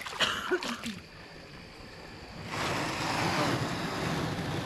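Canoe hull scraping and grinding against the shore as it is pulled in, a steady rough rush that starts about halfway in and lasts about two seconds.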